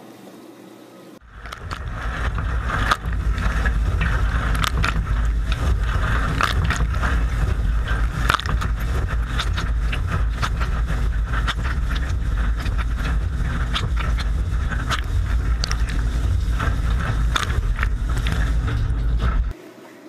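Kenmore dishwasher in its wash cycle, heard from inside the tub: water jets spraying and splashing over a waterproof-cased camera, a loud low rumble with a dense crackle of drops striking the case, played at double speed. It starts about a second in, after a quieter stretch of the machine running behind its closed door, and cuts off abruptly just before the end.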